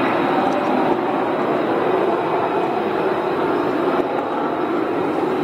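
Lockheed Martin F-22 Raptor in flight, its twin F119 turbofan engines giving a loud, steady jet roar.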